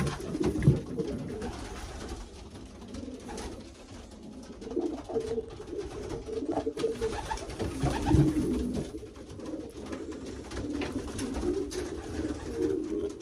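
Racing pigeons cooing in the loft, several birds overlapping in a continual low warble, with a few low bumps, the loudest near the start and about eight seconds in.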